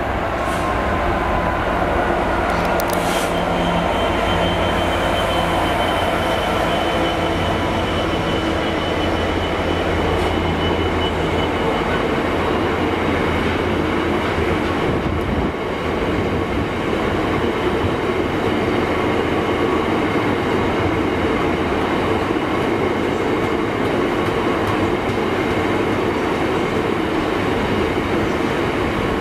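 Freightliner Class 66 diesel locomotive, with its two-stroke V12 engine, passing at speed with a train of bogie hopper wagons. The locomotive's low engine drone dies away after about a dozen seconds, leaving the continuous rumble of the wagons' wheels rolling over the rails with a thin, steady high-pitched ring.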